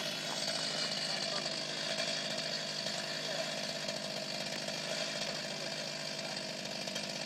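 Chainsaw running steadily at an even pitch while cutting into a tree being felled.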